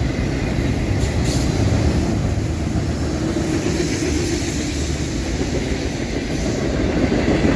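Freight cars of a mixed freight train rolling past at speed, about 45 to 50 mph: a steady noise of steel wheels on the rails, growing slightly louder near the end.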